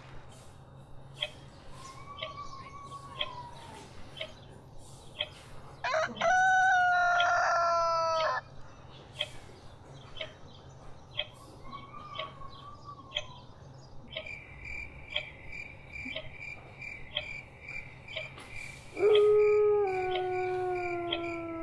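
Sound effects from a recording: light clicks at a steady tick, two short chirps, and a loud, long howl-like cry about six seconds in. A fast, high-pitched beeping starts about two-thirds of the way through, and another long howl-like cry comes near the end, sinking slowly in pitch.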